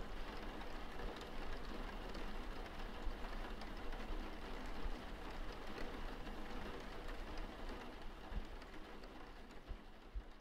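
Steady rain falling, an even hiss, slowly fading out toward the end.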